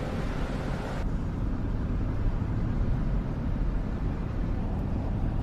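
Steady low rumble of a car in motion, heard from inside the cabin. The higher hiss above it thins out abruptly about a second in.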